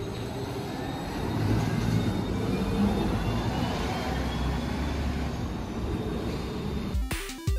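City bus running, a steady low rumble with road noise and a faint whine that rises slowly in pitch over a few seconds. Music cuts in abruptly near the end.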